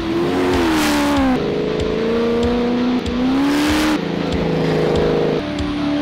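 A desert racing buggy's 6.2-litre LS3 V8 revving hard. Its pitch rises and falls, and it jumps abruptly to a new pitch every second or two.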